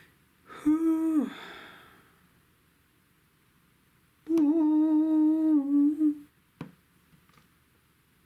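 A man hums two notes with his mouth closed: a short one that drops in pitch as it ends, about a second in, then a longer steady one from about four to six seconds; a short click follows.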